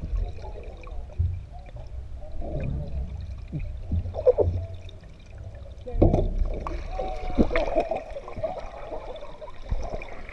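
Pool water heard underwater through a submerged camera: muffled sloshing and bubbling over a low rumble. Several sharp knocks come in the second half as a plastic scoop bumps against the pool wall.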